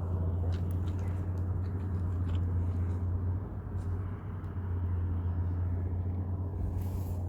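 Steady low rumble with a strong low hum, dipping a little about four seconds in, and a few faint clicks over it.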